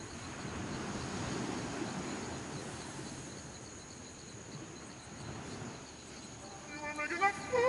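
Faint night insects chirping in an even, repeating pulse over a soft hiss. Music begins near the end.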